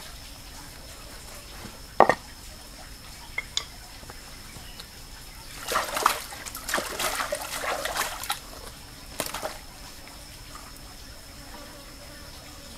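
A vegetable, likely a cucumber, being rubbed and rinsed by hand in a shallow stream: water splashes for about three seconds in the middle, with a shorter splash a second later. A single sharp knock about two seconds in is the loudest sound, over a faint steady high tone.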